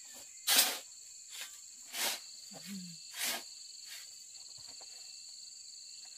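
Steady high-pitched insect chorus, two unbroken whining tones, with three brief rustling noises over it, the first and loudest about half a second in.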